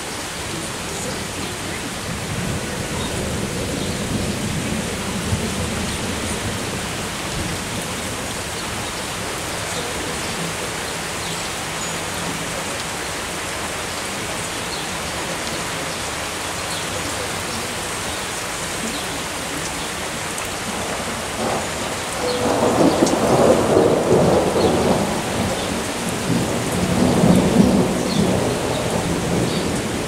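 Steady rain falling in a thunderstorm. About two-thirds of the way through, a long roll of thunder comes in, swelling twice before it dies back into the rain.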